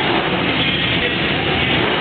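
Stunt motorcycle engine running as it is ridden across the floor, mixed with loud rock music playing steadily.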